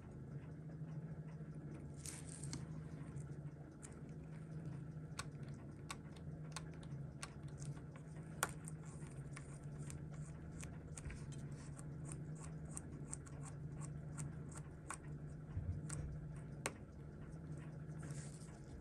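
Faint, scattered small clicks and scrapes of steel tweezers on the parts of a Seiko 6139 chronograph movement being taken apart, with one sharper click about eight and a half seconds in. A steady low hum runs underneath.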